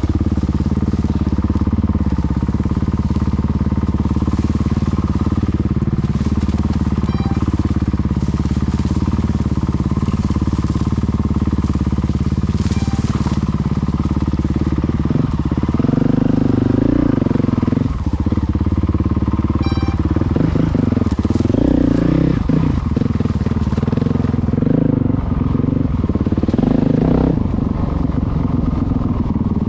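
Motorcycle engine running steadily at low revs; from about halfway the revs rise and fall several times.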